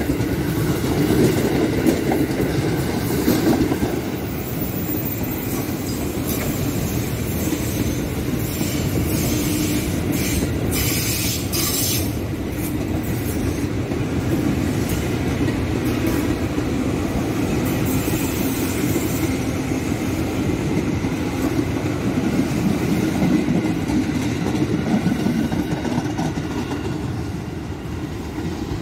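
Electric commuter trains rolling past on the tracks at a junction, with a steady rumble and wheels clacking over rail joints and points. A harsh, high-pitched wheel noise comes through about ten seconds in.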